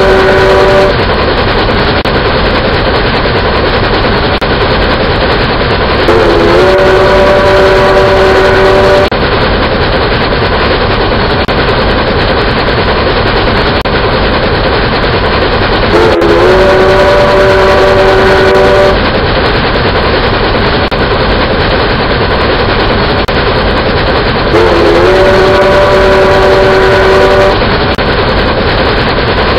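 Steam locomotive running sounds: a steady, loud rush of rail noise with a multi-note chime whistle blown for about three seconds roughly every nine seconds. The whistle blasts repeat almost identically, as from a looped sound effect.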